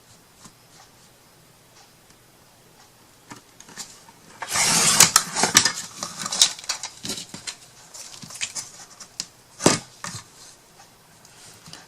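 Craft paper being handled and cut: a loud rustling scrape about four seconds in, then scattered clicks and rubbing of paper on the work surface, with one sharp click near the end.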